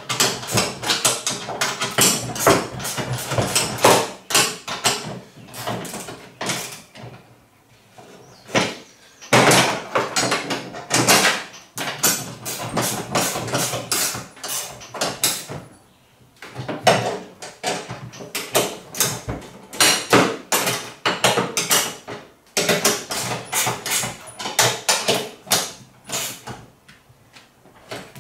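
Hand tools working bolts on the metal sprayer frame: runs of rapid clicks and clatter a second or two long, with short pauses between them.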